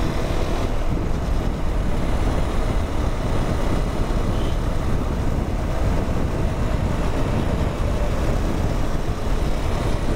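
Steady wind rushing over the microphone of a rider on a moving motorcycle, with road noise underneath.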